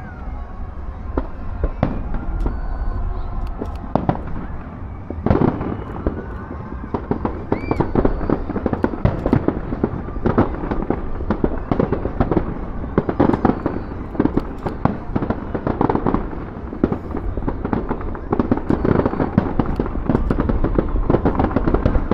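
Aerial fireworks display: a dense, continuous barrage of bangs and crackling from bursting shells, getting busier after about five seconds, with a short whistle about eight seconds in.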